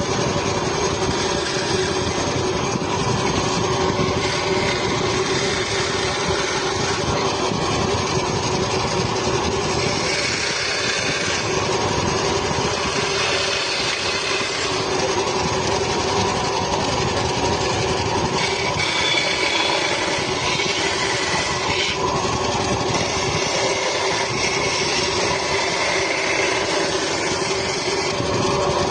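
A power tool's motor running steadily, with a steady hum and a few brief changes in pitch higher up as it works.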